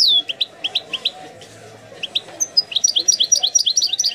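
European goldfinch singing: fast twittering runs of short, high, downward-sliding notes. The song thins out to a few scattered notes for about a second in the middle, then picks up again into a dense run.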